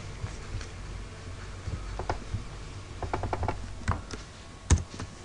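Scattered clicks at a computer, about one a second, with a quick run of four or five about three seconds in, over a low steady hum.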